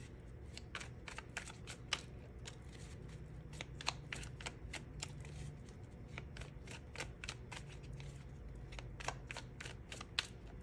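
A deck of tarot cards shuffled by hand, the cards slipping and tapping against each other in an irregular run of crisp clicks, several a second.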